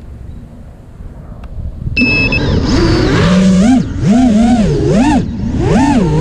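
Emax 2306 2400KV brushless motors and propellers of an FPV racing quadcopter, heard from the craft's own camera. A low rumble at first; about two seconds in the motors spin up at takeoff. Their whine then rises and falls in pitch about once a second as the throttle is worked.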